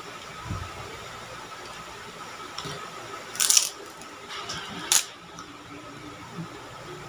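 Bites into a crisp white kerupuk cracker: a burst of loud crunching about three and a half seconds in, then a single sharp crunch about a second and a half later. A dull low thump comes about half a second in.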